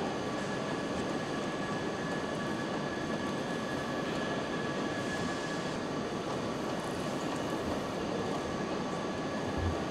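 Steady factory-hall machinery noise, an even rushing with two faint steady high whines, and one soft low thump near the end.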